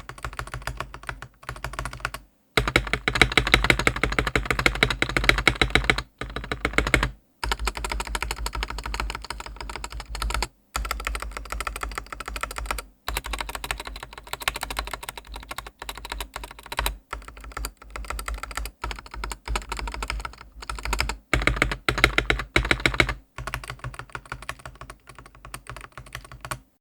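Typing on a Dareu A87 mechanical keyboard fitted with its stock linear switches: a dense, continuous stream of keystroke clacks. It comes in several runs broken by brief silent gaps.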